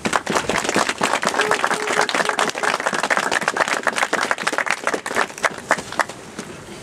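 Small crowd applauding: dense hand-clapping that starts at once and tapers off near the end.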